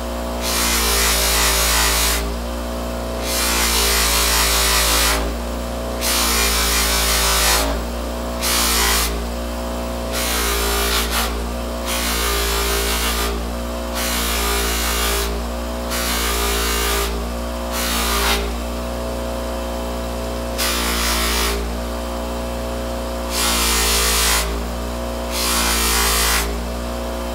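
Ryobi bench grinder running steadily with a motor hum while a small steel Coleman lantern pump cap is pressed against its polishing wheel. It makes a loud hissing rasp in repeated passes of one to two seconds, with short breaks between them.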